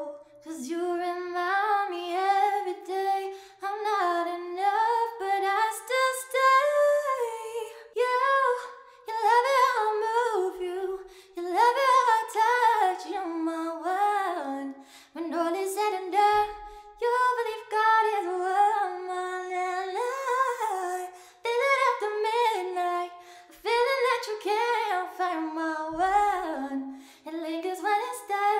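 A woman singing unaccompanied, a cappella, in a run of phrases with sliding, bending pitch and short breaths between them.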